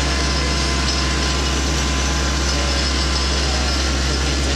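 A vehicle engine running steadily, a deep, even drone that does not change in pitch or loudness.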